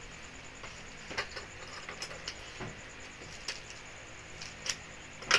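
Cardboard shipping box being handled and opened by hand: scattered light rustles, scrapes and taps as the packing tape is picked at and the box is turned, with a sharper crack just before the end.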